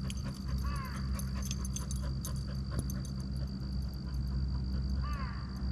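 A dog whimpering, two short falling whines about a second in and again near the end, over a steady low hum.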